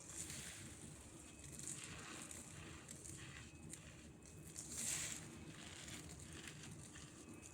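Crunchy cornstarch crumbs being crushed: fine, soft crackling and crunching, with a louder crunch about five seconds in.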